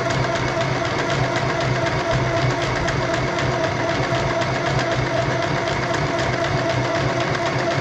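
Small electric sewing machine running steadily, its motor humming and the needle stitching through fabric in a rapid, even patter.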